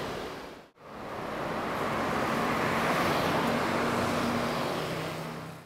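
Steady city road traffic, cars passing along a busy street with a low engine hum. The sound breaks off to a moment of silence under a second in, then fades back in.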